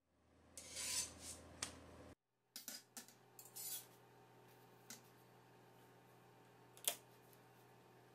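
Faint kitchen handling sounds as a chapati is cooked on a tawa and a wire grill stand over a ceramic hob. A rustling scrape swells over the first two seconds, then come scattered light clicks and taps of utensils on the hob, with one sharper click about seven seconds in.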